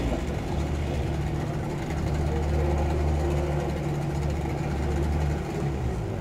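Racing outboard engines of T-550 class powerboats idling at the pontoon: a steady low drone.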